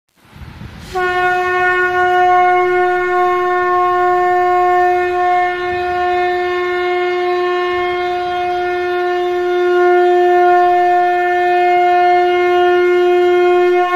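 Conch shell (shankh) blown in one long, steady note, starting about a second in and held without a break.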